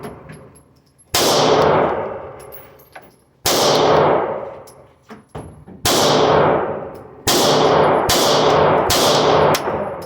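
Six pistol shots at an indoor range, fired at an uneven pace with the last two about half a second apart. Each shot has a long, ringing reverberation tail.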